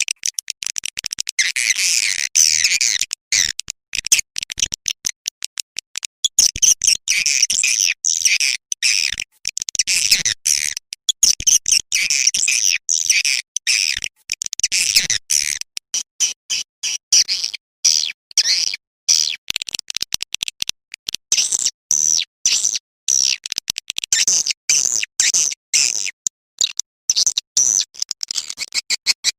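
Recorded swiftlet calls: rapid, high twittering chirps and clicking trills, dense and chopped by many brief gaps. It is a swiftlet-house lure call, played to draw swiftlets in to roost in a nesting building.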